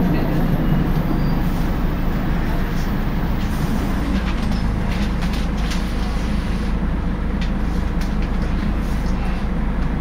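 Interior noise of a Volvo Wright Renown single-decker bus: a steady low drivetrain churn that sounds like a washing machine, which the uploader takes for a failed differential, with scattered light rattles and clicks. The lowest part of the drone grows stronger about a third of the way in.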